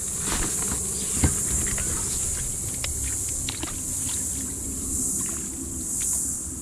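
Light clicks and knocks of hands handling a mud crab while it is measured, one sharper knock about a second in, over a steady high outdoor hiss and a low rumble.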